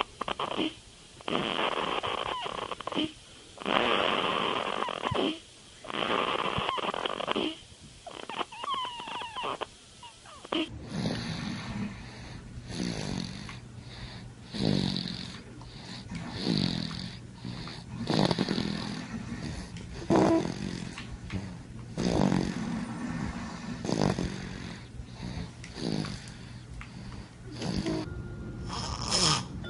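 Sleeping babies snoring: breathy snores a second or two long with short pauses, then after a cut about eleven seconds in, another snorer with a snore every couple of seconds over a steady low hum.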